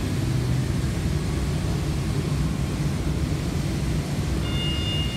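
2.5-ton electric forklift with a bale clamp driving across a concrete warehouse floor: a steady low rumble. A high, steady whine of several tones comes in near the end.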